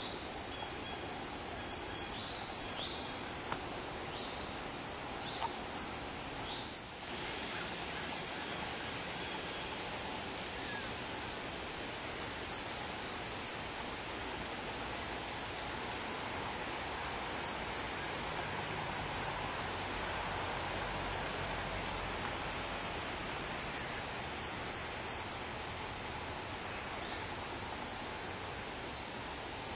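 Steady, high-pitched insect chorus that goes on without a break, with a fainter chirp repeating about once a second beneath it.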